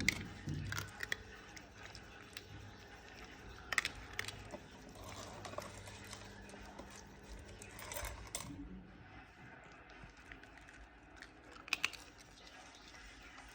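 Small, sharp pops and clicks at irregular intervals over a faint low hum, the loudest near the start and about four seconds in.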